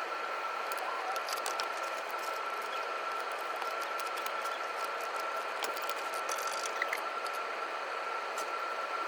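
Steady mechanical noise with a constant high whine and scattered light clicks and rattles.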